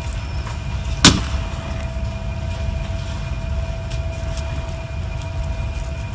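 Steady low room rumble with a faint steady hum, broken about a second in by one sharp clack as a hot glue gun is set down on a metal tray, then a few faint handling clicks as foam pieces are pressed together.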